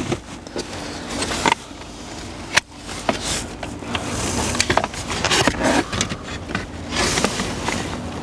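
Sharp plastic clicks, knocks and rattling as wiring connectors are unplugged from the switches of a car's dash switch panel, with the loudest clicks about one and a half and two and a half seconds in.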